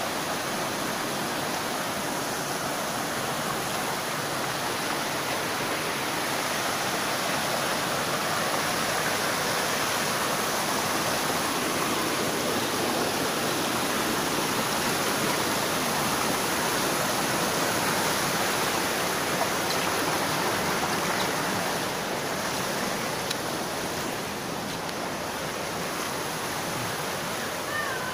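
Rocky river water rushing steadily over stones and small cascades, a little louder in the middle.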